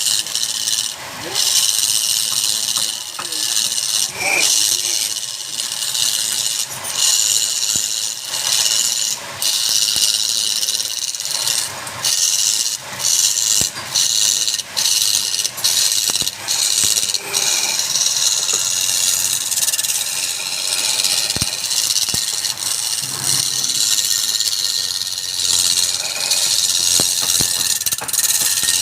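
A cutting tool working a workpiece spinning on a wood lathe, making a steady high hiss of cutting, broken by frequent short breaks as the tool lifts off and goes back on.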